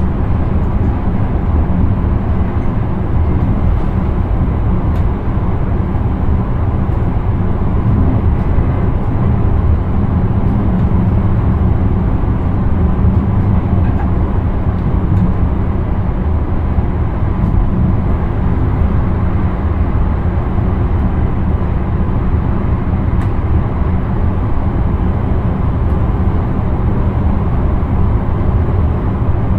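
Intercity train heard from inside the driver's cab while running along the line: a steady low rumble of wheels on rails and running gear, unbroken throughout.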